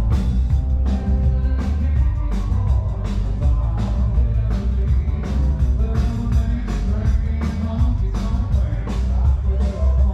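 Rock and roll music with singing, a steady drum beat and heavy bass.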